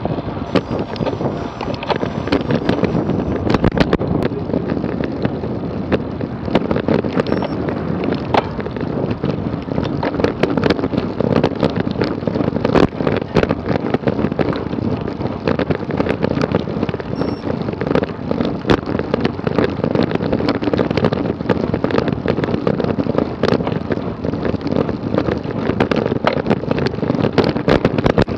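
Wind buffeting the microphone of a camera on a road bike riding at speed, with tyre and road noise and many sharp clicks and rattles from the bike and camera mount.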